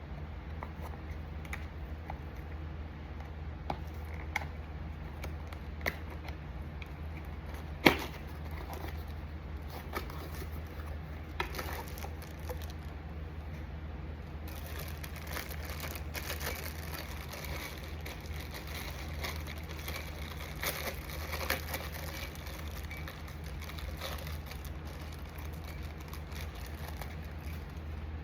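Blind-box packaging being handled and opened: scattered light clicks and taps, one sharp knock about eight seconds in, then crinkly rustling of wrapping from about halfway through, over a steady low hum.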